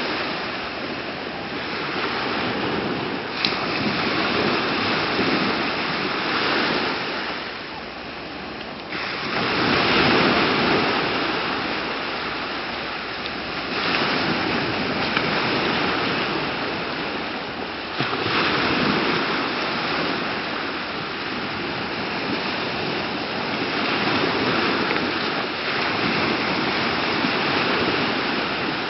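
Small waves breaking and washing up over a flat sandy shore, the hiss of surf swelling and fading every few seconds.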